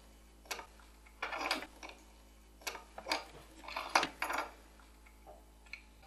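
Light clicks and short scrapes of a soldering iron and small metal tools working at a circuit board, scattered irregularly over a quiet background.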